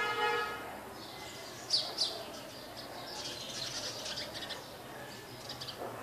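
Small birds chirping: a couple of sharp high chirps about two seconds in, then a run of rapid high twittering for a few seconds. A brief steady pitched tone sounds at the very start.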